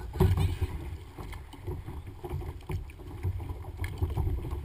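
Water sloshing and slapping against a plastic sit-on-top kayak hull as a double-bladed paddle is dipped and pulled through the water, with irregular splashes and knocks, the loudest just after the start.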